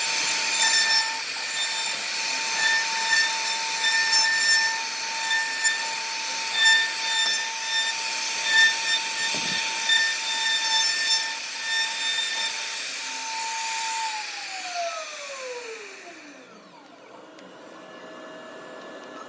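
CNC router carving wood: the spindle whines steadily while the bit cuts, with a rough scraping cutting noise. About 14 seconds in, the spindle switches off and its whine falls in pitch as it winds down, leaving a quieter steady hiss.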